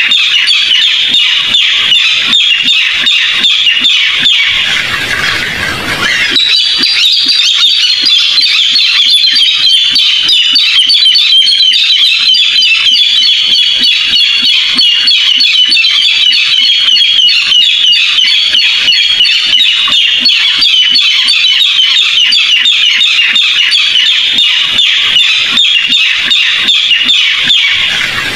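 Barred rail calling: a continuous, rapid series of high notes, a recorded call played as a lure for trapping rails. There is a brief noisier break about five seconds in, after which the calling resumes.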